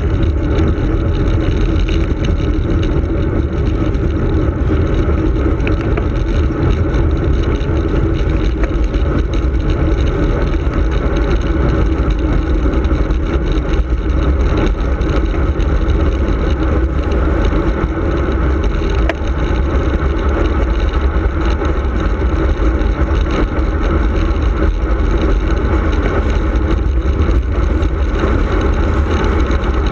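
Wind buffeting the microphone of a handlebar-mounted camera on a racing tandem descending at speed: a steady, loud rush with no break.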